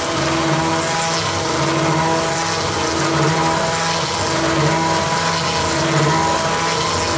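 Desktop CNC router spindle running at about 12,000 RPM, milling holes in a metal plate with a 1/8-inch single-flute bit, over a steady hiss of compressed air blown at the cut. The cutting tone swells and fades about once a second.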